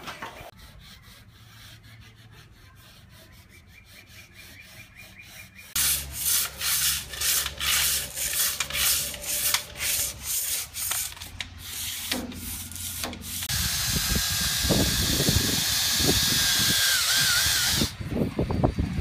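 Sanding on a boat's hull bottom during prep for paint: loud rhythmic rubbing strokes, about two a second, then a few seconds of steady hiss that cuts off near the end.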